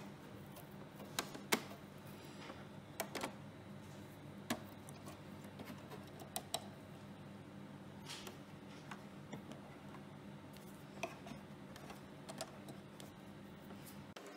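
Scattered light clicks and taps as a fine paint brush works lint out of the sewing machine's metal bobbin area, over a faint low hum that cuts off near the end.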